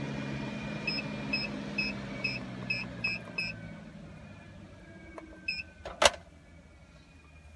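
Handheld controller for a Webasto diesel heater beeping with each button press: a quick run of about seven short beeps, then one more a couple of seconds later, as the heat is turned up. A sharp click follows near the end, over a low hum that fades away early on.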